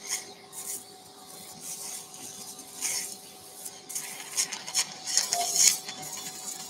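Irregular short bursts of hissing and crackling from surgical instruments working in a bleeding wound, busiest in the second half, over a faint steady electrical hum.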